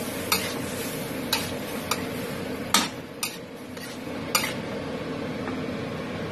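Metal spatula scraping and clinking against a stainless steel wok as stir-fried pechay and mushrooms are tossed: about six sharp clinks over a steady background noise.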